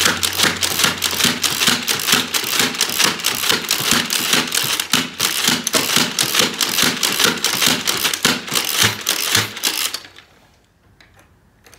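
X-Shot Crusher spring-powered dart blaster slam-firing Elite darts: a rapid, even run of mechanical shots, several a second, each a clack of the priming slide and spring release. The firing stops about ten seconds in.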